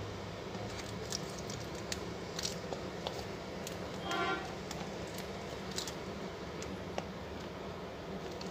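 Steady room background with a low hum, a few faint scattered clicks, and one short high tone about four seconds in.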